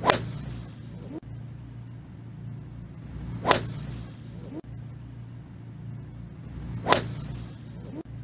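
Golf club striking the ball off the tee three times, about three and a half seconds apart: each a sharp crack with a brief high ringing tail. A steady low hum runs underneath.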